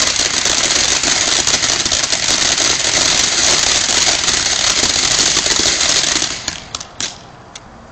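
Ground fountain firework spraying sparks with a dense hiss and crackle. It falls off sharply about six seconds in, leaving a few last pops.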